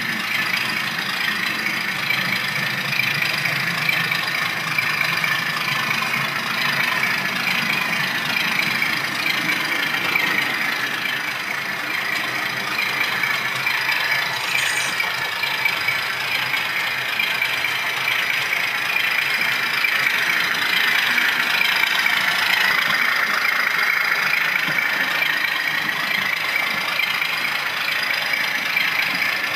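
Model locomotive sound decoder playing a recording of a class 37's English Electric 12CSVT diesel engine running under load, heard through the model's small speaker. The engine note is steady, then about three quarters of the way through it dips in pitch and climbs back up.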